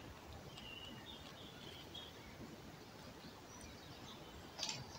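Faint woodland ambience with a few short, high bird chirps, and a brief scuffing noise shortly before the end.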